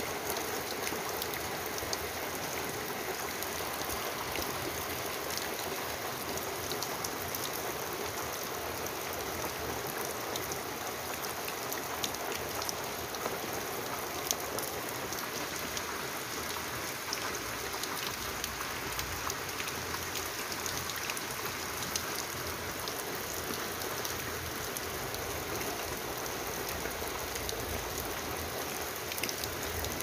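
Steady rain falling: an even hiss dotted with many small drop ticks.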